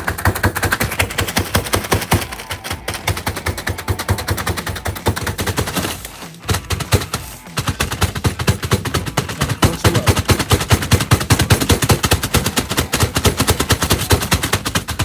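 Oreo cookies being crushed in a Ziploc bag with rapid, repeated pounding blows on a hard surface, many a second, with a short pause about six seconds in.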